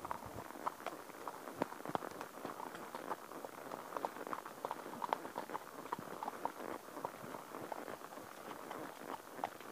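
Horse's hooves walking on a path covered in fallen leaves: a steady, irregular run of soft hoofbeats and many small clicks.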